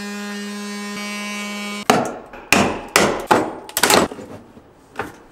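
Cordless power tool running steadily at one pitch for about two seconds as it cuts into a LiFePO4 battery's plastic case. It then stops, and about seven sharp knocks and cracks follow over the next three seconds as the case is broken open.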